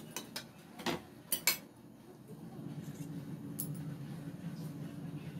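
Metal spoon clinking against a metal mixing bowl of puffed rice, about five quick sharp clinks in the first second and a half.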